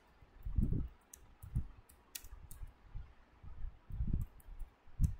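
Typing on a computer keyboard: irregular key clicks, with a few dull low thumps that are the loudest sounds.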